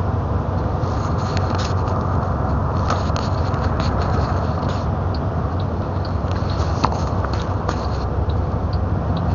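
Truck cab interior noise while driving: a steady low engine and road drone with light, irregular clicks and rattles from the cab throughout.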